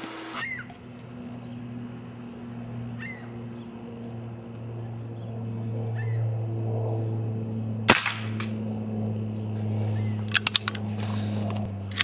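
A modified Crosman 2240 .22 CO2 pellet pistol fires once, a single sharp crack about eight seconds in, followed by a smaller click half a second later. About two seconds after that comes a quick run of four or five clicks. Birds chirp now and then over a steady low hum.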